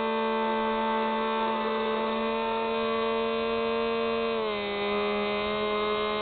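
Electric motor and propeller of a small RC FPV plane, heard close up through its onboard camera, whining at a steady pitch that drops a little about four and a half seconds in.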